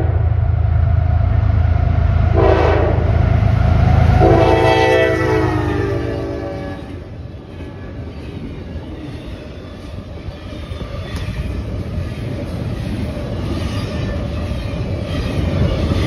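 CSX double-stack intermodal freight train passing close by. The diesel locomotives rumble and sound the horn: a short blast, then a longer one about four seconds in whose pitch drops as the engines go past. The stack cars then roll by with a steady rattle of wheels on the rails.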